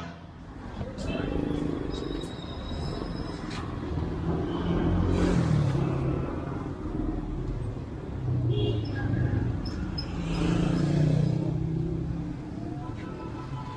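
Street traffic: the engines of passing motorbikes and cars rising and fading, with voices in the background.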